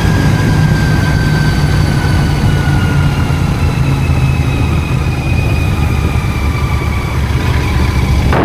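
Royal Enfield Continental GT 650's 648 cc parallel-twin engine running steadily, picked up by a microphone inside the rider's helmet, with a faint high whine slowly falling in pitch.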